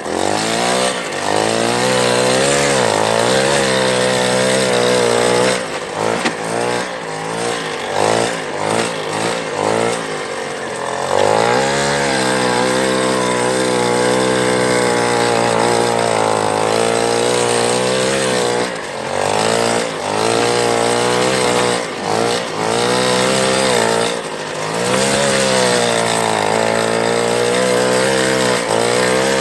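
Small Piaggio engine running under throttle, its pitch rising and falling as it revs. There is a run of quick throttle blips in the first third and a few brief drops in revs later on.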